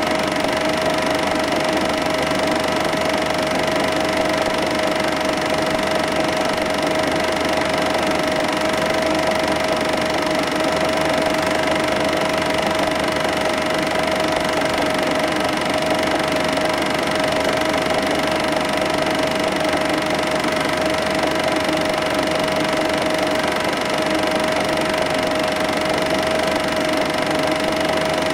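Film projector running: a steady mechanical whir with a constant high hum, unchanging throughout.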